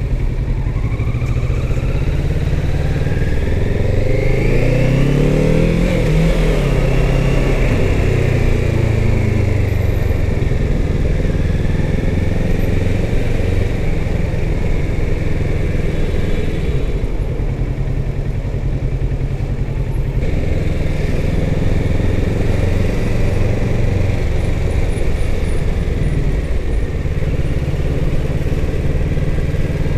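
Kawasaki Z650's parallel-twin engine running while riding in traffic. Revs climb and fall once about five seconds in, then the engine note stays fairly steady.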